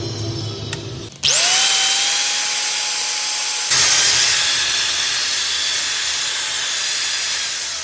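Makita angle grinder switched on about a second in, its motor whining up quickly to a steady high pitch. A couple of seconds later the sound turns louder and hissier, and near the end it starts to wind down.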